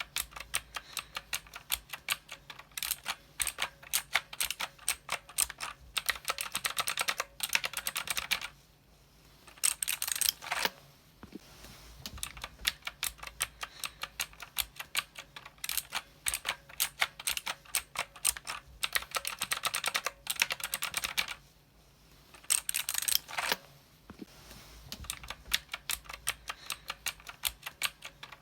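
Fast typing on a mechanical keyboard: rapid runs of sharp key clicks, broken twice by brief pauses of about a second.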